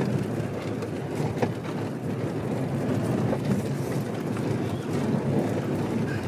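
VW California camper van driving along a rough off-road track: a steady rumble of engine and tyres, with a few scattered knocks and rattles.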